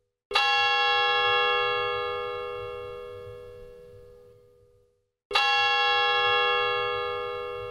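A bell-like chime struck twice, about five seconds apart. Each stroke rings out with many overtones and fades slowly, then cuts off abruptly a moment before the next.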